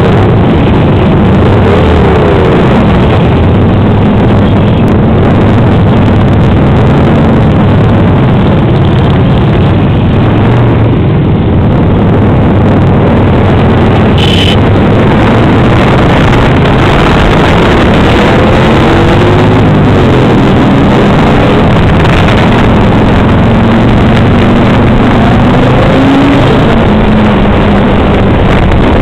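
Harley-Davidson V-twin motorcycle engine running at road speed, heard from the saddle with heavy wind noise on the microphone; its pitch rises and falls several times with the throttle. A short high tone sounds about halfway through.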